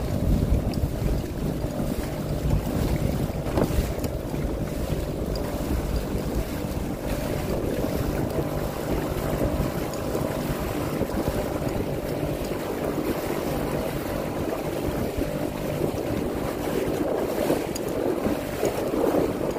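Small boat's motor running steadily while underway, with water rushing past and wind buffeting the microphone.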